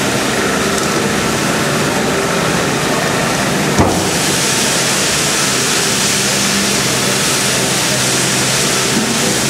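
Steam hissing steadily from the safety valves of LMS 3F 'Jinty' 0-6-0 tank engine No. 47406 as it blows off, growing louder and brighter about four seconds in. A single sharp knock comes just before the hiss swells.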